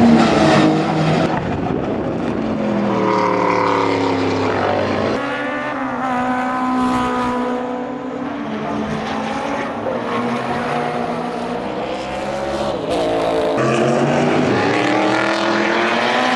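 Turbocharged Toyota 4T-GTE four-cylinder engine of an AAR Toyota Celica IMSA GTO race car, running hard through corners. Its pitch rises under acceleration and falls off, again and again, as it goes up and down the revs.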